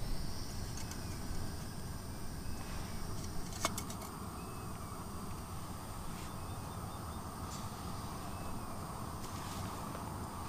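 MSR Windburner gas stove burning with a steady hiss; a sharp click comes about a third of the way in, and after it the hiss is stronger. Wind rumbles on the microphone underneath.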